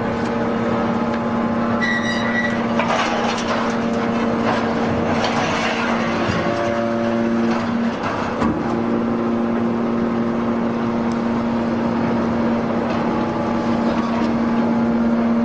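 Scrap metal baler's hydraulic power unit running with a steady hum, under a continuous rattle and clatter of metal; the hum dips and breaks briefly about eight seconds in, then carries on.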